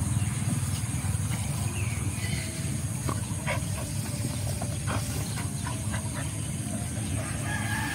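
Dogs digging into loose soil and rubble: short scrapes and clicks of paws and muzzles on dirt and stone, mostly from about three to six seconds in, over a steady low rumble and a high hiss.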